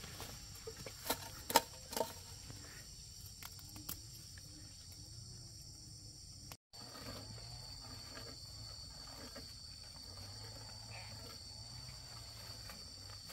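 Insects, such as crickets or cicadas, making a steady high-pitched drone, with three sharp knocks in the first two seconds, the loudest about a second and a half in. The sound cuts out for a moment just past the middle, and the drone comes back slightly lower in pitch.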